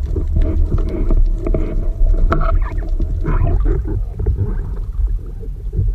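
Underwater sound picked up by a camera in a waterproof housing: a heavy low rumble of water with many scattered clicks and knocks, and some muffled, indistinct sounds about two to four seconds in.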